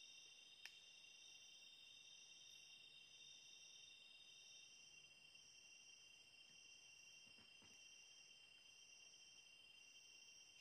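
A faint chorus of night insects, several high-pitched trills at once: one pulses about once a second, and another stops a little under halfway through. A single sharp click comes just under a second in, with a couple of fainter ticks later.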